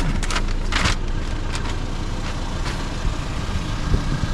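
Toyota Hilux ute's engine idling steadily, a low rumble, with a brief rustle about a second in.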